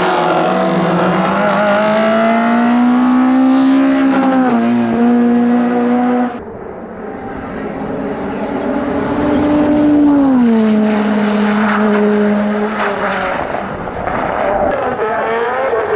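Race car engines at full throttle, their pitch climbing and dropping in steps with gear changes. About six seconds in the sound cuts abruptly to another run, which climbs again and shifts down about ten seconds in.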